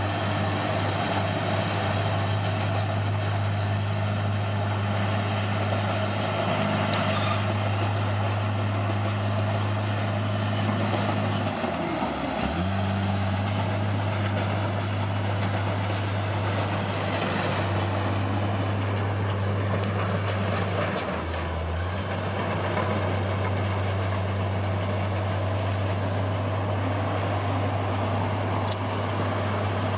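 Caterpillar D6R bulldozer's diesel engine running steadily. Its pitch sags sharply and recovers about twelve seconds in, then dips briefly again around twenty-one seconds.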